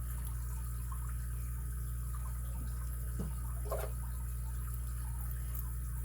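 Steady low hum with a faint hiss, broken only by a couple of faint light clicks a little past three seconds in.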